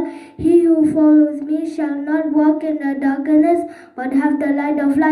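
A young girl singing solo into a handheld microphone, unaccompanied, in long held notes with short breaks between phrases.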